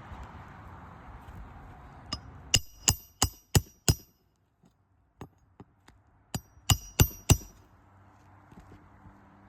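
Hammer blows with a metallic ring, in two quick runs of about five or six strikes each, about three strikes a second, with a short pause between the runs, during hands-on roof shingle repair work.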